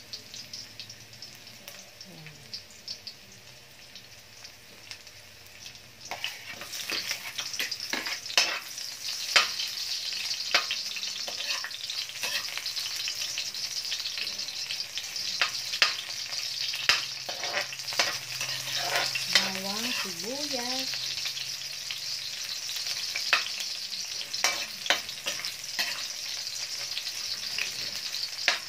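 Onion and garlic sizzling in hot oil in an aluminium wok, stirred with a metal spatula that scrapes and taps against the pan. The sizzle grows louder about six seconds in.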